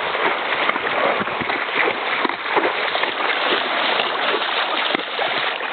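Shallow seawater splashing and sloshing around legs and hooves wading through the surf's edge: a steady wash of noise with a few sharper splashes.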